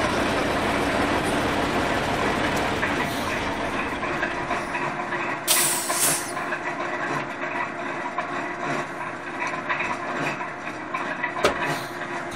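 Moldovanka quarry stone-cutting machine running, its large circular saw blade spinning, a steady mechanical drone with one held tone through it. A brief loud hiss comes about six seconds in, and a sharp click near the end.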